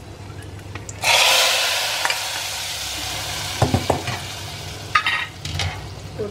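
Dried turkey berries frying quietly in sesame oil, then about a second in a sudden loud sizzle as the hot oil and berries are poured into the clay pot of kulambu, fading slowly over several seconds. A few sharp knocks of the pan against the pot come near the end.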